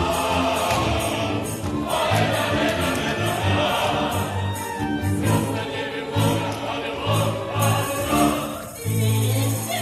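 Music: a choir singing a Romani-style song over instrumental backing with a steady bass pulse.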